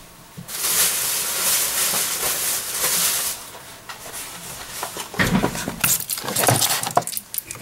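Rustling, hissy handling noise for about three seconds, then a run of knocks and clatter as blister-packed Beyblade toys in card and plastic packaging are handled and set down on a wooden table, with one heavier thump about five seconds in.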